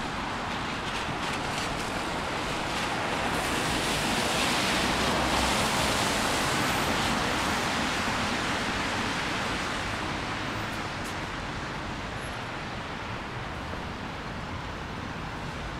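Road traffic: a steady rush of passing vehicles that swells about five seconds in as one goes by close, then slowly eases.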